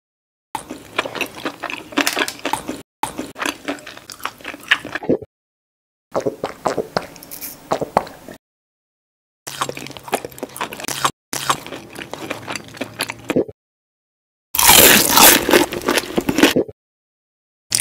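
Close-miked eating sound effects: bites, chewing and crunching, in six separate bursts of about two seconds each with dead silence between them. The burst about fifteen seconds in is the loudest.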